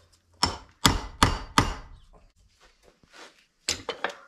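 Hammer striking a punch to drive a bearing outer race into a Dexter trailer-axle wheel hub: four sharp metal blows in about a second and a half, then a few lighter knocks near the end.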